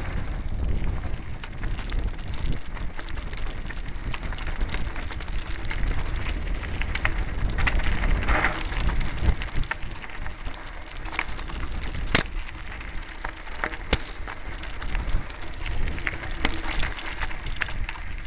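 Mountain bike rolling down a rocky gravel trail: tyres crunching over stones and the bike rattling over bumps, with wind buffeting the microphone. Two sharp knocks stand out about two seconds apart in the second half.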